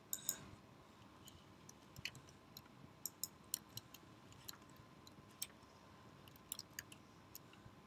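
Faint, irregular keystrokes on a computer keyboard and mouse clicks as text is typed into a login form, with a couple of louder clicks near the start.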